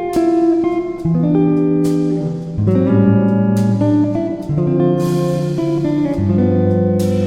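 Background music: guitar strumming chords, changing chord about every second and a half.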